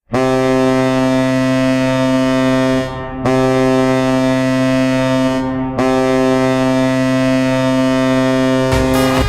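Denver Pioneers ice hockey goal horn blowing three long, steady, deep blasts of about three seconds each, with only brief breaks between them. Loud music starts just as the third blast ends.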